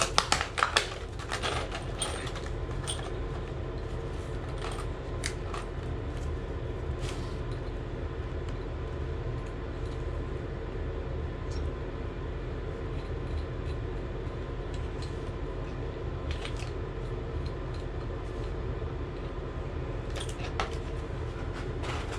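Power tool running steadily, grinding the brass valve seat inside a tub/shower faucet body smooth, with a few sharp clicks as it is set in place about a second in.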